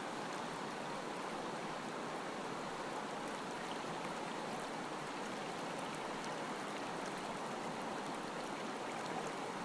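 Steady rushing of river water, an even hiss with no change in level.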